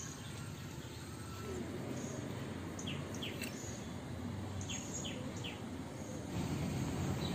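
Short, high bird chirps, a handful in two quick groups about halfway through, over a steady low outdoor rumble that gets louder near the end.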